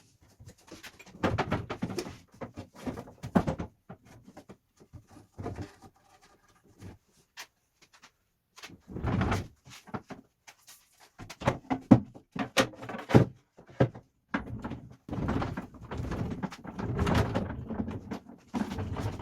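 Irregular knocks, clunks and sliding or scraping sounds of wood and tools being handled on a workbench, in uneven clusters with short pauses between.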